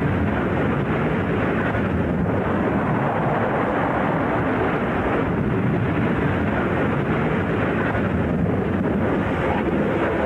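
Steady, dull rumbling noise with wind on the microphone, like aircraft noise on a low-quality recording, with no distinct events.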